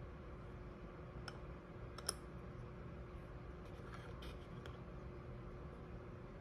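A few light clicks and taps of small metal parts of a Veritas miniature shooting plane being handled as its blade is fitted. The sharpest click comes about two seconds in, with a small cluster of quieter ticks around four seconds.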